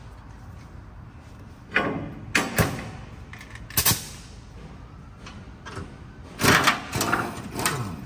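Scattered sharp metallic clanks and knocks from hand tools on the underside of a car, as the gearbox mount's bolts are worked on, over a steady low background hum. The knocks come singly for the first four seconds, then a louder cluster of them comes about six and a half seconds in.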